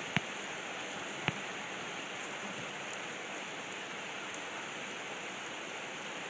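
Heavy rain pouring down in a steady, even hiss, with two sharp ticks in the first second and a half.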